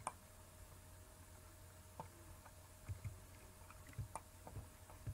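Faint, scattered clicks of a computer keyboard and mouse, single keys and buttons pressed at irregular intervals, more often in the second half, over a low steady hum.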